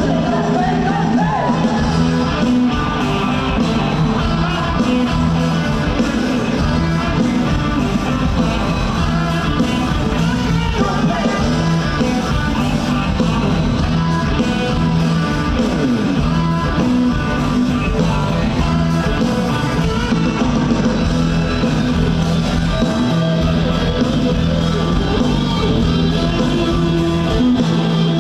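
Rock band playing live with electric guitar, drums and a sung vocal line.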